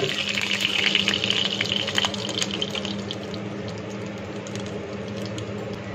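Ghee sizzling and crackling in a hot aluminium kadhai on a gas stove, a hiss with scattered pops that is loudest in the first couple of seconds and then dies down, over a steady low hum.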